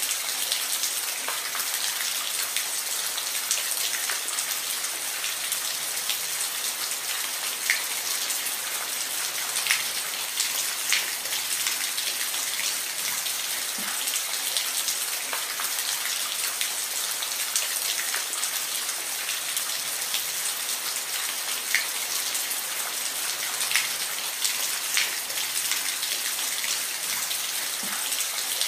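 Steady rain with a continuous hiss and scattered individual drops ticking on a surface.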